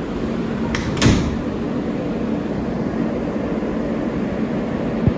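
R143 subway car's sliding doors closing with a thud about a second in, over the car's steady running noise; another short thump near the end.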